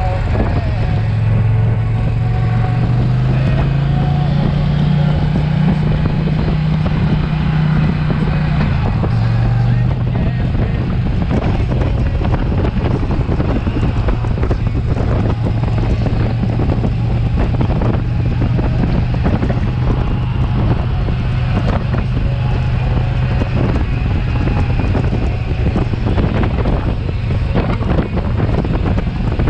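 2020 Indian Challenger's V-twin engine running at road speed, heard from the rider's seat under heavy wind noise on the microphone. The engine pitch climbs over the first couple of seconds, drops about nine seconds in, then holds steady.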